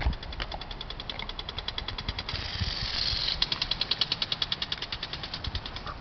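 Lawn sprinkler on a garden hose ticking rapidly and evenly, about ten ticks a second. About two seconds in there is a one-second rush of spraying water.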